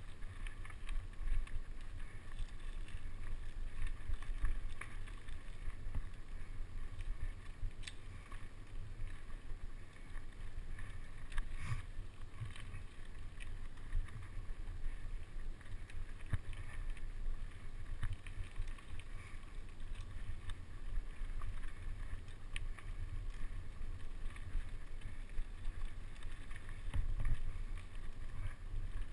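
Mountain bike riding a dirt trail, heard from a camera on the bike or rider: a steady low rumble of wind and tyre noise on the microphone, with scattered rattles and knocks over the bumps.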